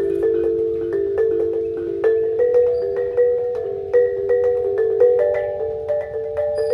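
T'boli klintang, a row of small tuned gongs on a wooden rack, played live with beaters: a quick melodic run of struck notes, several a second, each ringing on and overlapping the next.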